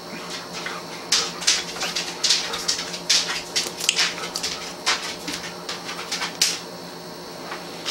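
A person drinking iced tea from a plastic bottle and tasting it: a string of short, irregular wet mouth clicks from gulps, swallows and lip-smacks, over a low steady hum.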